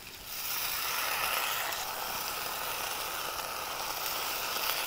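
Soaked moong dal going into hot oil with fried onions and spices in a kadhai, the pan sizzling. The sizzle jumps up sharply about a third of a second in and then runs on steadily.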